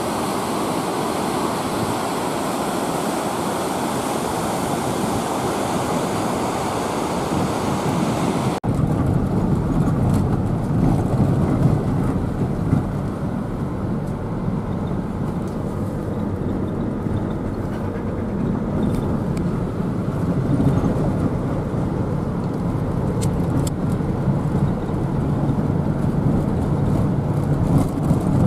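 Steady vehicle road noise, as heard while riding in a moving car or truck. After a cut about eight and a half seconds in, the sound turns lower-pitched, with small clicks and knocks.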